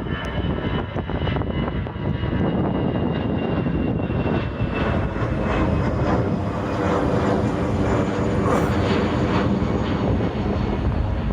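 Airliner engines of a departing plane passing overhead: a steady roar with a high whine that slowly falls in pitch.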